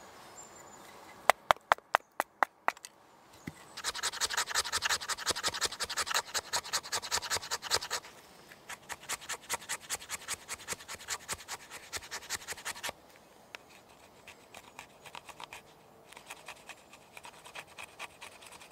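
A knife blade scraping a resinous fatwood stick against a wooden stump in quick, rhythmic strokes, working it into fine tinder shavings. The strokes are loudest in the first half and lighter near the end. A short run of sharp wooden clicks comes just before the scraping starts.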